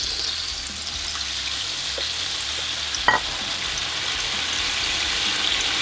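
Hot oil in an electric deep fryer sizzling and bubbling steadily around battered food just lowered into it, with a single click about three seconds in.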